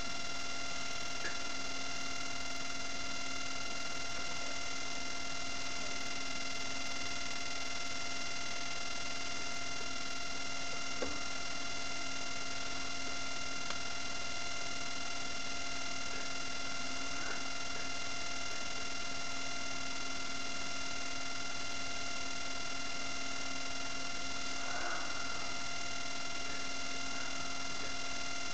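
Steady electrical hum: a low tone with a stack of higher whining tones over a constant hiss, with a couple of faint ticks.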